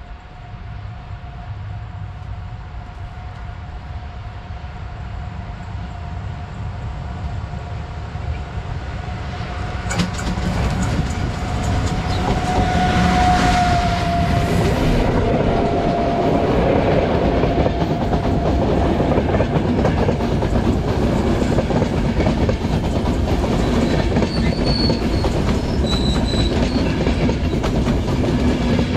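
A train approaching and passing close by. It grows louder over the first ten seconds or so, then runs loud and steady with the clickety-clack of wheels over rail joints.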